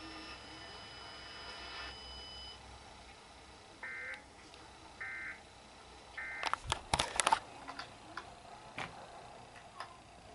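Emergency Alert System digital data bursts: three short buzzy bursts about a second apart, followed by a flurry of loud clicks and knocks.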